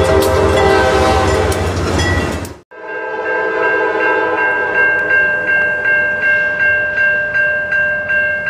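A train horn sounds loudly over locomotive rumble, then cuts off abruptly about two and a half seconds in. A railroad grade-crossing bell then rings steadily at roughly three strokes a second, with a fainter train horn fading out beneath it at first.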